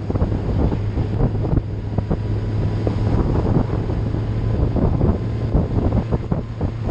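Wind buffeting the microphone of a moving vehicle, with a steady low engine drone underneath.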